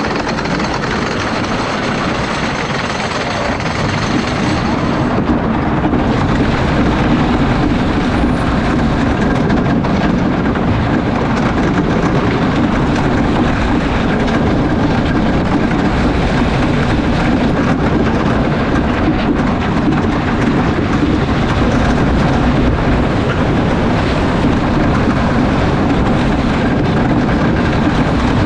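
Lightning Racer wooden roller coaster train running on its wooden track, a steady loud rumble and rattle of the wheels. It grows louder about five seconds in as the train drops off the lift hill and picks up speed.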